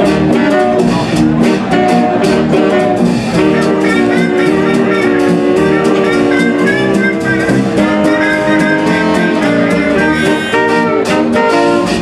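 A 1930s-style dance band playing an early-1930s jazz number: saxophones, trumpet and trombone holding chords and a melody over a double bass and a plucked-string rhythm with a steady beat. A standing trumpeter plays a lead line through the middle and end.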